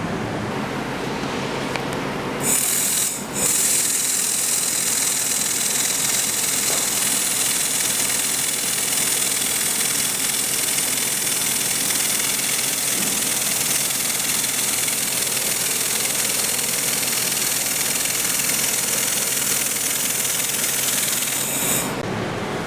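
A 2000 W laser welding machine welding stainless steel plate: a steady high hiss that starts about two and a half seconds in, breaks off briefly just after, then runs evenly and stops shortly before the end. A low steady machine hum lies under it.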